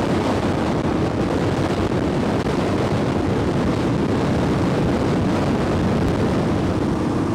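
Royal Enfield Classic 350 motorcycle on the move: steady engine and road noise mixed with wind buffeting the microphone.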